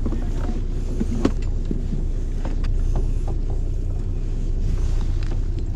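Steady low rumble of a fishing boat's engine running at sea, with a few faint clicks about a second in.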